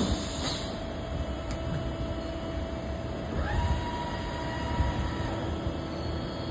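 AWEA LP4021YZ double-column vertical machining center running, with a steady mechanical hum. About three and a half seconds in, a whine rises briefly and then holds at a steady pitch as the machine speeds up.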